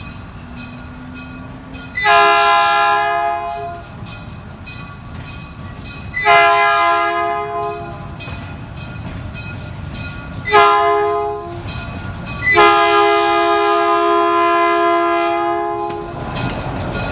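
Diesel switcher locomotive's air horn sounding the grade-crossing signal: two long blasts, a short one and a final long one, over the low rumble of the approaching engine, which grows louder near the end as it nears the crossing.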